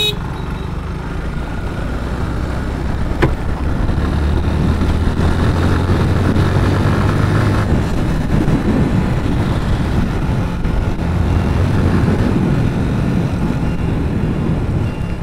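Motorcycle being ridden at road speed: steady engine hum under wind and road rumble, with one sharp click about three seconds in.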